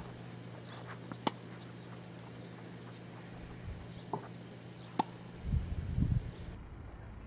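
Sharp pops of a tennis ball being struck, one about a second in and a louder one about five seconds in, with a weaker pop just before it. A low rumble swells briefly near the end.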